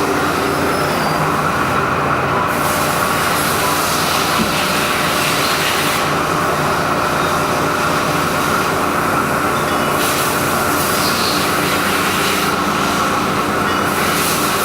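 Haas EC-400PP CNC horizontal machining center running under power: a steady mechanical hum with a high whine, and a hiss that comes on for a few seconds twice.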